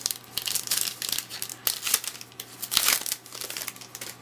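Wrapper of a football trading card pack crinkling and tearing as it is opened by hand, in a run of irregular crackles.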